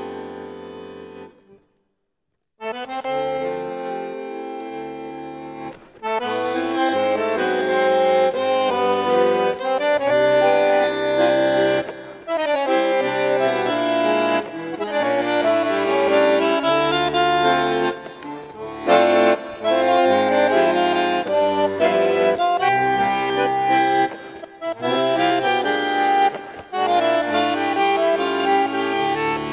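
Solo bandoneon playing full chords over bass notes. A held chord fades out about a second and a half in, and after a brief pause the playing resumes, growing fuller and busier from about six seconds in, with short breaths between phrases.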